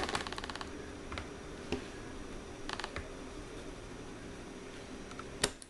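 Small metal clicks and ticks from the parts of an Enlan M07 folding knife being worked together by hand while a tight-fitting part is pressed into place. There is a quick run of about a dozen ticks at the start, scattered single clicks, another short run about three seconds in, and a sharper click near the end.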